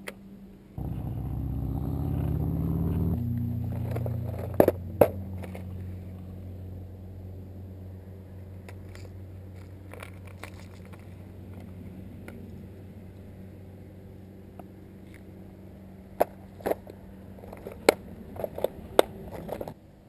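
A steady motor drone, loudest in its first few seconds, that stops abruptly just before the end. Over it, sharp clicks and rattles of a plastic tackle box and lures being handled: two clicks about four to five seconds in and a run of them near the end.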